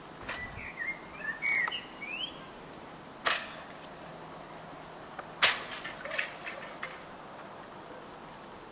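Car wing mirrors being struck and snapped off: two sharp cracks about two seconds apart, the second followed by a rattle of smaller clicks. Before them come a few short, high chirping calls.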